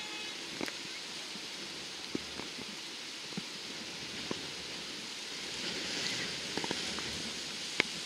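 Steady jet hiss from a taxiing Boeing 757 freighter, with a few short sharp clicks scattered through, the loudest near the end.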